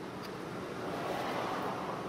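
Steady electric hum of an idling stick welder, with a soft rushing noise that swells to its loudest about a second and a half in.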